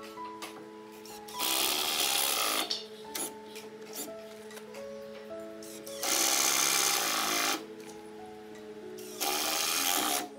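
Handheld cordless drill run in three bursts of one to one and a half seconds, worked into the joints of a plywood cabinet carcass, over background music.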